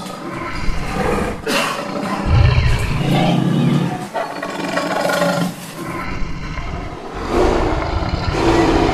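Tiger growling and roaring in a string of rough calls, the deepest and loudest about two and a half to four seconds in.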